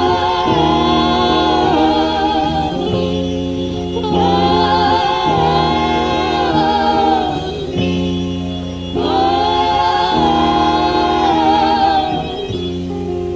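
Music: vocals held in three long sustained notes with vibrato, over steady sustained band accompaniment.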